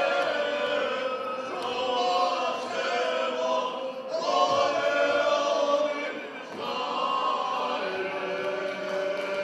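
Folk choir of men and women singing unaccompanied, in phrases of long held notes with short breaks between them, about four and six and a half seconds in.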